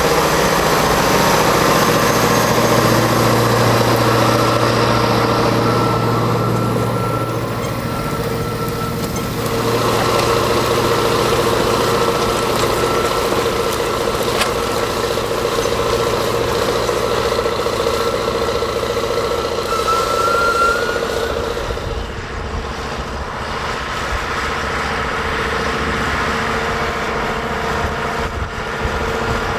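John Deere 8850's 15.6-litre V8 diesel engine running steadily, with a high whine that rises in pitch about twenty seconds in.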